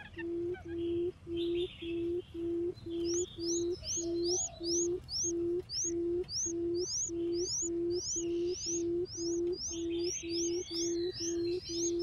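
Female barred buttonquail's booming call: a short low hoot repeated steadily about twice a second. From about three seconds in, another small bird adds a rapid run of high chirps.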